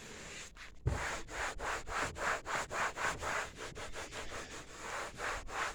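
Rhythmic back-and-forth rubbing on a faded black plastic toolbox as tire shine protectant is worked into it, about three strokes a second, starting with a light knock about a second in.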